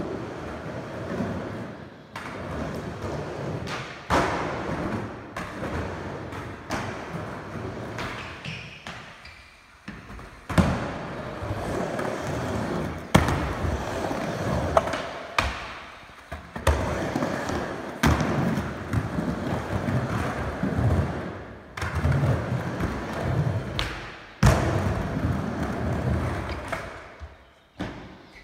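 Skateboard wheels rolling and rumbling across ramp and bowl surfaces in repeated runs that swell and fade. Several sharp thuds come where the board hits or lands on the ramp.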